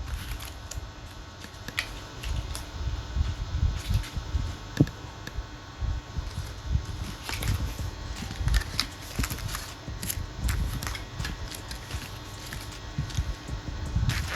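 Hands handling packaging and a newly unboxed item: scattered small clicks and rustles with irregular low bumps.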